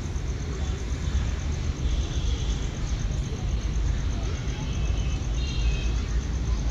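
Low, steady rumble of a diesel locomotive approaching from a distance along with outdoor platform ambience, with faint voices or chirps now and then.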